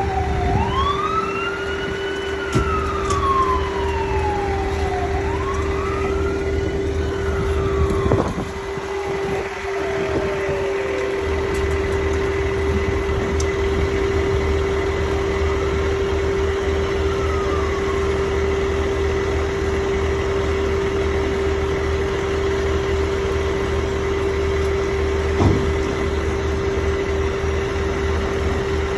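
An emergency vehicle's siren wailing in long rising and falling sweeps, dying away about ten seconds in, over the steady drone of an idling engine.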